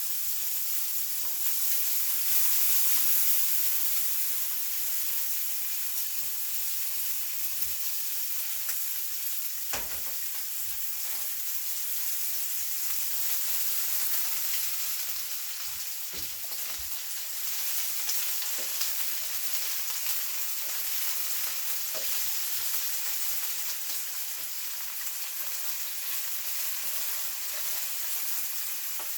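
Stir-fry meat and vegetables sizzling steadily in a hot pan, with a few light knocks about ten seconds in and again around sixteen seconds.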